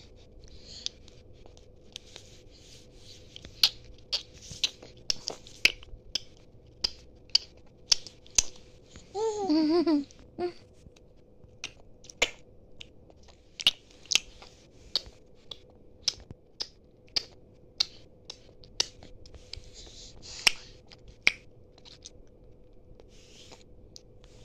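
A baby making mouth noises: an irregular string of sharp mouth clicks and smacks mixed with short breathy hisses, and one brief squealing vocal sound about nine seconds in. A faint steady hum runs underneath.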